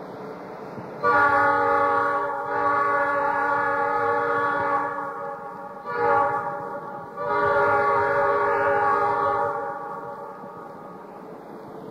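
Train horn blowing a long blast, then a short one about six seconds in, then another long blast that fades away.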